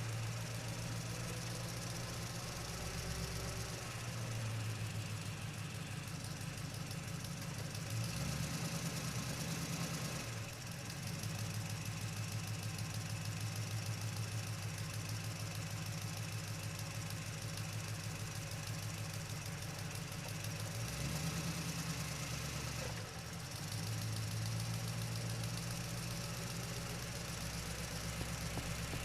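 Truck engine running as the truck drives, with a steady low knocking note. The engine note changes twice, about eight and twenty-one seconds in, with a short drop in level after each.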